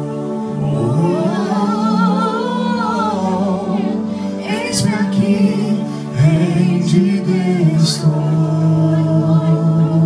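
A man and a woman singing a slow Christian worship song into microphones, their long held notes wavering over steady sustained accompaniment chords.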